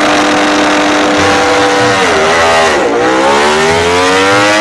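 Ducati Desmosedici MotoGP race motorcycle's V4 engine held at steady high revs. A little past halfway the note dips briefly, then it rises steadily in pitch as the bike accelerates away.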